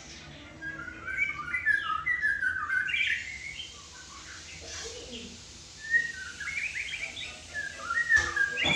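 White-rumped shama singing rapid, varied whistled phrases in two bouts, with a short lull near the middle. Two sharp clicks come in the second half.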